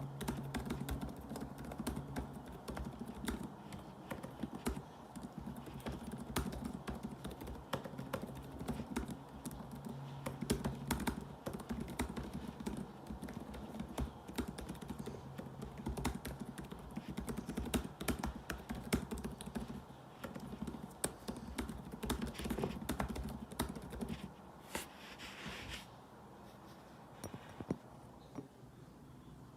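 Fast typing on a laptop keyboard: a dense, irregular patter of key clicks that thins out to a few separate taps near the end.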